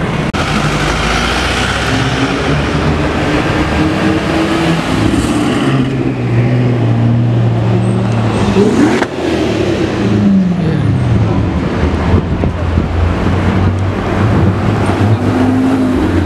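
High-performance car engines revving and accelerating, with the engine note rising and falling. The sound changes abruptly about nine seconds in, and an engine pitch falls away shortly after.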